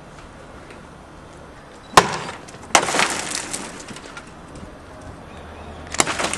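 Something brittle is smashed for a sound effect. A sharp crack comes about two seconds in, then a second hit with about a second of crackling, scattering debris, and another hit and smash near the end.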